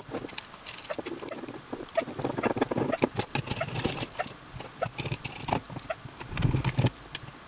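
Metal parts of a microscope stand being handled and fitted together: irregular light clicks, taps and scrapes of metal on metal.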